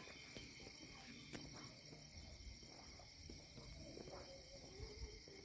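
Faint night-time insect chorus: a steady, high-pitched shrilling in several pitches at once, with a few soft clicks.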